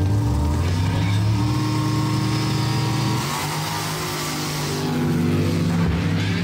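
Mud-drag pickup's engine at full throttle as the truck launches and runs down the mud pit with its tyres spinning; the engine note holds loud and steady, shifting pitch a couple of times.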